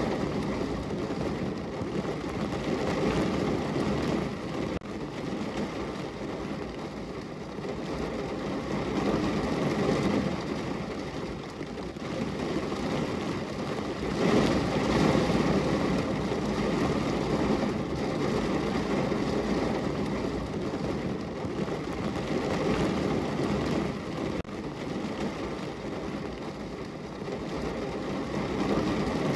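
Rain falling on a window: a steady wash of noise with a low rumble under a lighter hiss, swelling louder and easing off several times as the rain comes in heavier gusts.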